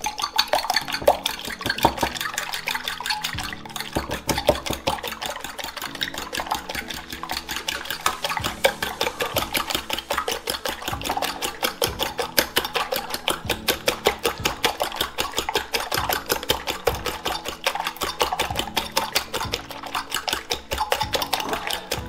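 Raw eggs being whisked with a fork in a ceramic bowl: rapid, steady tapping of the tines against the bowl with the wet beating of the egg.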